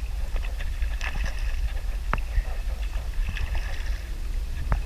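A kayak moving over calm water: a steady low rumble with a few scattered small clicks and splashes.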